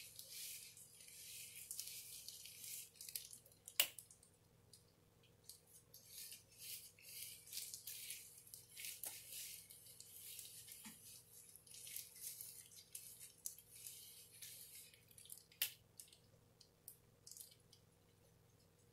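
Faint, irregular swishing of gloved fingers rubbing bleach through a wet strand of long hair, with two sharp clicks, one about four seconds in and one later on.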